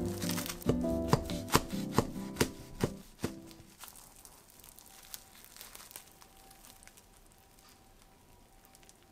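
A knife cutting through a cling-film-wrapped sandwich on a wooden board, a run of sharp strokes about every half second over light background music that fades out after about four seconds; then only faint handling sounds.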